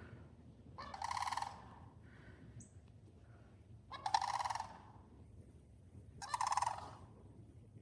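Sandhill cranes calling: three loud, pulsed calls, each under a second long, a couple of seconds apart. The calls come during what the onlooker takes for the pair's mating ritual.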